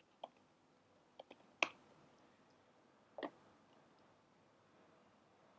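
A few separate sharp clicks from a computer keyboard and mouse. The loudest comes about a second and a half in, and a quick pair of clicks follows a little after three seconds.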